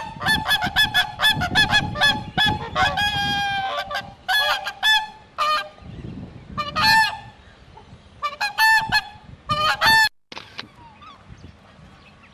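Tundra swans calling: a quick run of high, nasal honks, one drawn-out call about three seconds in, then scattered honks that cut off suddenly about ten seconds in.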